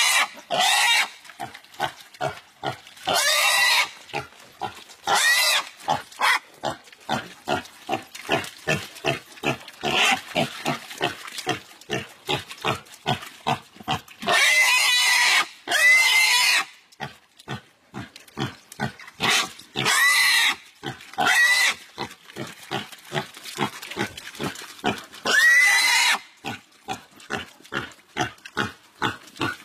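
A pig squealing in distress while two dogs bite and hold it: repeated long, shrill, loud squeals, with rapid short grunts, two to three a second, in between.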